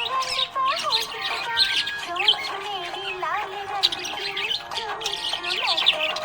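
A flock of budgerigars chirping and squawking rapidly and continuously over background music with a sung melody.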